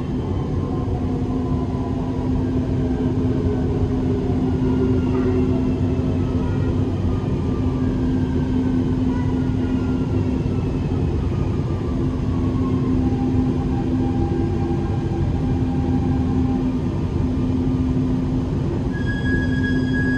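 Dubai Metro train running with a steady rumble, its electric motor whine falling steadily in pitch as it slows for a station stop. Near the end a steady high tone sets in.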